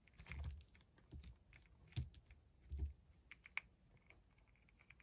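Faint scattered clicks and taps of fingernails and fingers on a small cube of thick clear adhesive tape as it is pressed together, with a few soft handling bumps.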